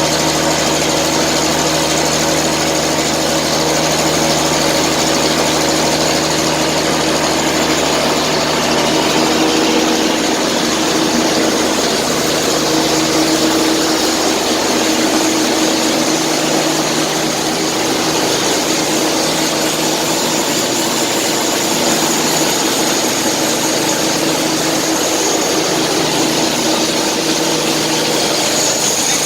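Biomass flash dryer plant running: a loud, steady machine drone from its fans and motors, with an even hum over a broad rush of air. The deepest part of the hum drops away about halfway through.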